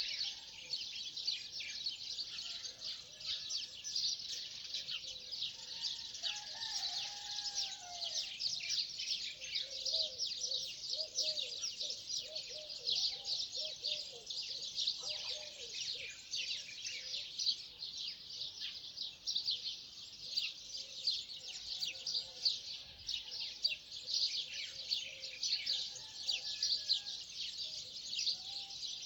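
A dawn chorus of many birds chirping densely and continuously, with some lower, gliding calls mixed in during the first half.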